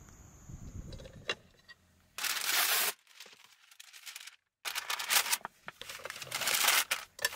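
Sheet of baking paper crinkling and rustling in the hands as it is unfolded and wrapped around a sandwich-maker plate, in three bursts starting about two seconds in.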